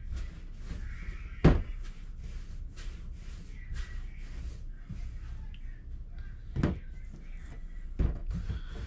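Challah dough strands being rolled by hand on a work surface: soft repeated strokes, about three a second, with three thumps on the table, the loudest about a second and a half in.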